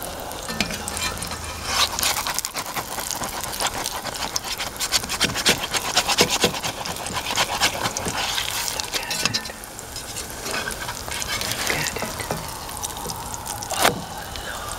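Onion pancake batter frying in hot oil in a cast iron pan, sizzling and crackling steadily with fine spatters throughout. A sharper knock stands out near the end.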